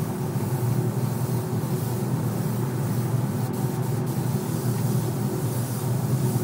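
Steady hum of a paint booth's ventilation fans, with the hiss of a compressed-air spray gun spraying coating.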